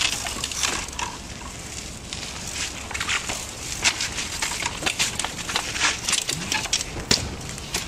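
Irregular crunching and clicking of small bicycle tyres rolling over a gritty dirt path.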